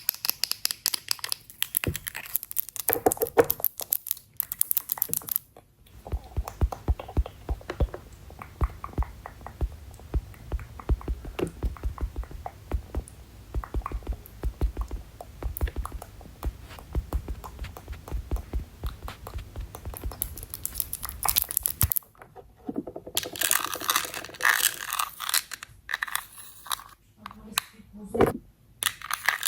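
Close-miked ASMR sounds of handling makeup: crinkling and rustling at first, then a long run of rapid light tapping and clicking with soft thumps under it, then crinkling and rustling again near the end.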